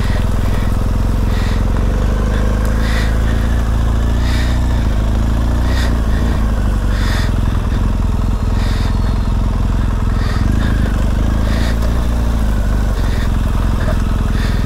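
Dirt bike engine running at low speed along a rough trail, the revs rising and falling a little with the throttle, with short ticks about every second and a half.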